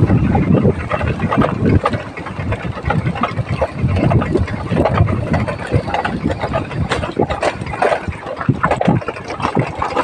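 Vehicle engine running while driving over a rough gravel road, with scattered knocks and rattles from the bumpy surface.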